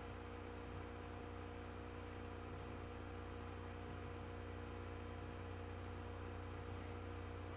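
Steady low electrical hum with faint hiss, unchanging throughout: the background hum of the recording, with no other sound.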